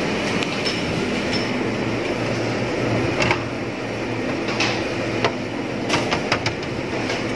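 Steady mechanical hum of a shop's cooling equipment, with a few light clicks and knocks about three seconds in and again near the end.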